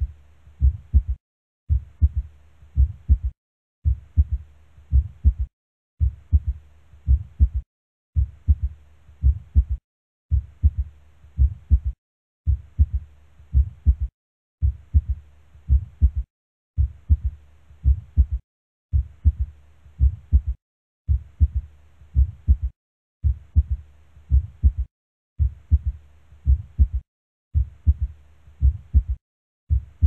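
Recorded heart sounds with a third heart sound (S3): each lub-dub is followed closely by an extra low thud, giving an S3 gallop rhythm. It is a short clip looped over and over, cut by a brief silent gap about every two seconds.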